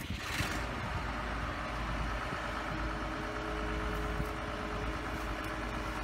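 An engine running steadily with a low rumble and a faint steady hum, with a brief rustling burst of noise at the start.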